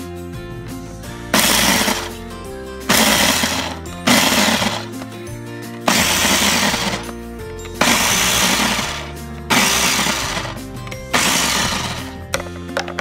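Food processor pulsed seven times, chopping basil leaves, garlic cloves and walnuts: each burst of motor and spinning blade starts suddenly and dies away after about a second. Background music plays underneath.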